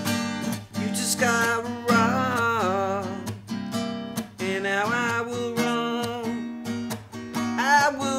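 Acoustic guitar strummed in a steady rhythm by hand, with a man's voice singing three long, wavering phrases over it, about a second in, around the middle, and near the end.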